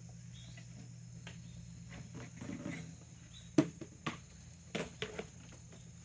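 Goats' hooves shuffling, then clopping and knocking sharply about five times in the second half, the first knock the loudest, over a steady low hum.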